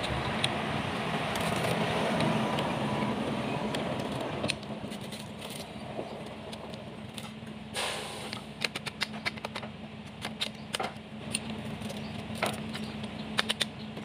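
Light clicks and clinks of hand work on metal engine parts over a steady hum, with a noisy rush in the first few seconds and the clicking coming thick and irregular in the second half.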